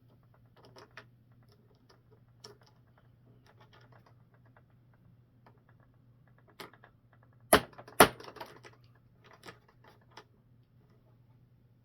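Small hard parts and tools clicking and rattling as they are handled, then two sharp knocks about half a second apart, like a hammer tapping on a kit part, followed by a few more light clicks.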